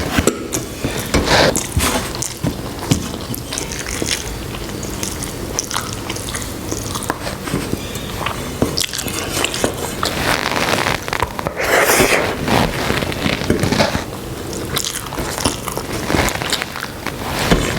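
Close-miked eating: wet, clicking mouth sounds of chewing mouthfuls of rice and egg curry, with a few crunchy bites.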